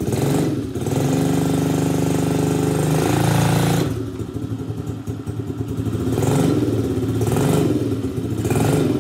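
Small go-kart engine with an aftermarket CRF exhaust pipe, cold after sitting unused, running and being revved. It is held at high revs for about three seconds, drops back about four seconds in, then rises and falls three more times.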